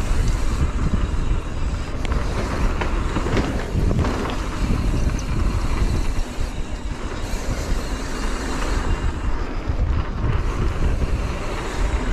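Mountain bike riding a dirt trail: steady tyre and bike rattle with wind buffeting the camera microphone.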